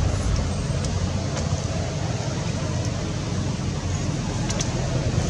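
Steady low rumbling background noise, with a few faint clicks about four seconds in.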